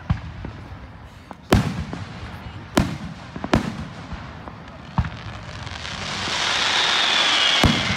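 Fireworks going off: about five sharp bangs of aerial shells bursting, then from about six seconds in a loud hissing rise with a whistle that slowly falls in pitch, cut by one more bang near the end.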